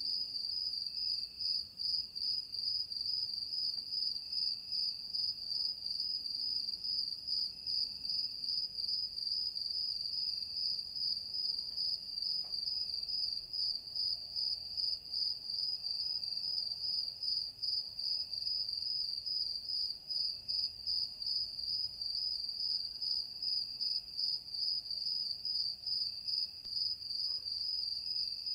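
Crickets chirring steadily in a continuous, finely pulsing high trill.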